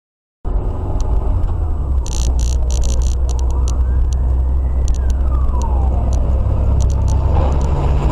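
Dashcam recording of a car driving on a road: a loud, steady low rumble of engine and road noise starting abruptly about half a second in, with a faint siren-like wail that rises and falls once in the middle.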